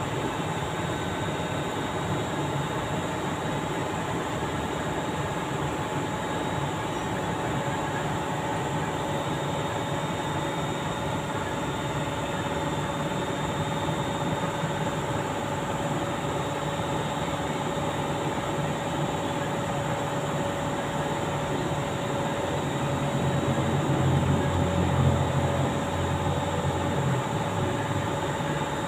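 Steady mechanical drone of background machinery with a faint high whine on top; a deeper hum swells louder for a few seconds about three-quarters of the way through.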